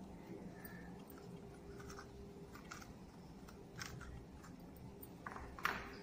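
Scissors snipping through a green coconut leaf: a series of faint, short, irregular snips, with a slightly louder crackle near the end.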